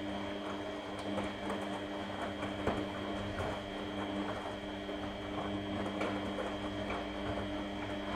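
Front-loading washing machine running a wash cycle: a steady motor hum with a faint high whine, over the uneven swish and light knocks of wet clothes tumbling in the turning drum.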